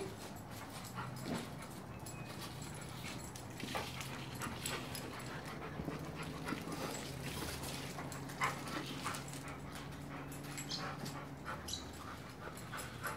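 A Rottweiler puppy and a larger young Lab-Rottweiler cross playing tug of war with a rope toy on paving: scattered scuffles and short clicks of paws and claws on the pavers as they pull.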